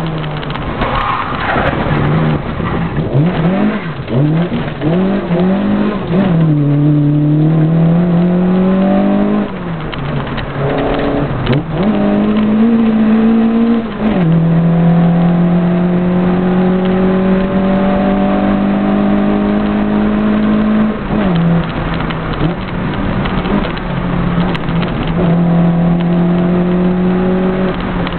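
A 1300 rally car's engine heard from inside the cabin, driven hard on a gravel stage: revs rising and falling quickly through the bends at first, then pulling up through the gears with sudden drops in pitch at each gear change, including a long stretch held at steady high revs in the middle.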